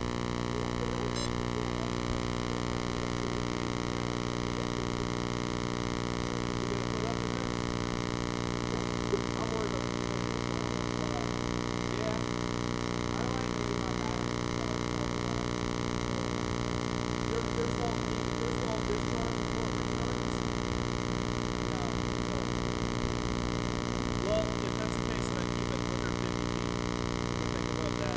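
Steady electrical hum made of many even tones, from the powered-up Yuneec Typhoon G drone's electronics as heard by the GoPro mounted on it; the propellers are not spinning. A sharp click comes about a second in, and faint short chirps sit over the hum.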